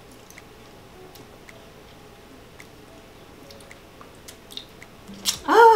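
Faint wet sucking and small lip-smacking clicks as a piece of citrus fruit is sucked at the lips. Near the end comes a loud wordless vocal groan that rises and falls in pitch, a reaction to the sour taste.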